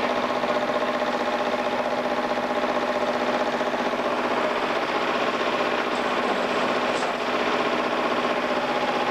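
Tractor engine idling steadily close by, a constant even running note.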